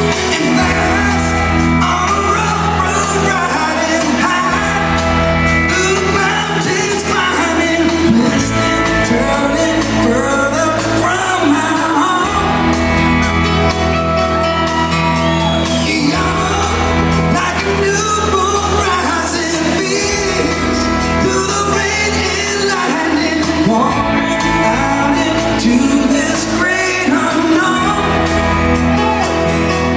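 Live rock band playing with a sung lead vocal, the crowd shouting and whooping along, in a large concert hall.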